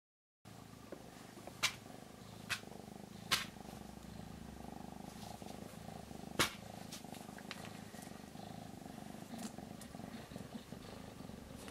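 Domestic cat purring in a steady low rumble that starts abruptly a moment in, with about four sharp clicks over the first seven seconds.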